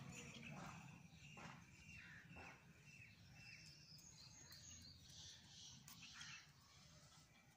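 Near silence: faint outdoor background with a few faint, short high chirps and ticks.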